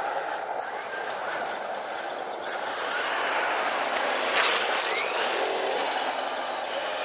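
Two Heng Long radio-controlled model tanks, a Tiger I and a Panther, driving on asphalt: a steady whirring of their small electric drive motors and plastic tracks, swelling about three seconds in as they come close, with a sharp click about four and a half seconds in.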